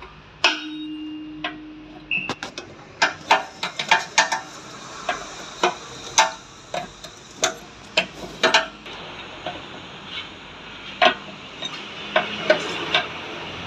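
Metal tools and parts clinking and knocking at an irregular pace. An early clank about half a second in rings on briefly.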